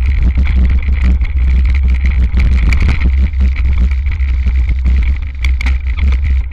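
Wind rumble on the microphone of a handlebar-mounted camera as a hardtail mountain bike rides fast downhill on a dirt trail, with constant rattling and knocking from the bike over the rough ground.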